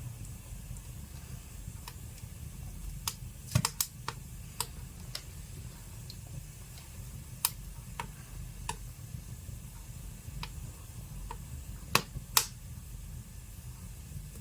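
Wood fire burning in a fireplace: irregular sharp crackles and pops over a low steady rumble, with the loudest pops a few seconds in and again near the end.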